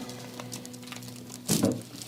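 A chiropractic adjustment thrust about one and a half seconds in: one short, sudden crack of joints releasing, over background music with held notes.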